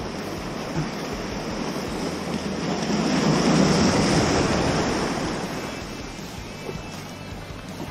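Ocean surf: a wave surges in, rising to a peak about three to four seconds in and then washing back, over a steady wash of sea noise.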